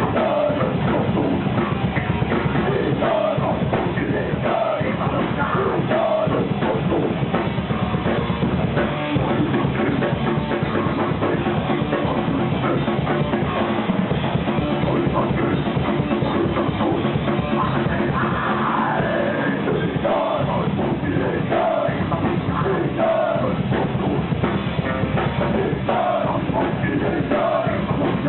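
Heavy metal band playing live at full volume, a drum kit keeping a steady beat under dense amplified instruments.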